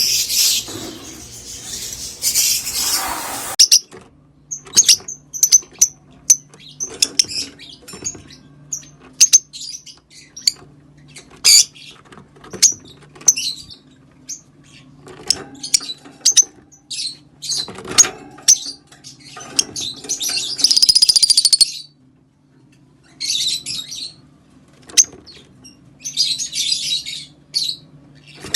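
Green Fischer's lovebirds chirping and chattering. A dense run of shrill chatter opens, then come many short separate chirps, and longer bursts of chatter return near the end. A faint steady low hum runs underneath.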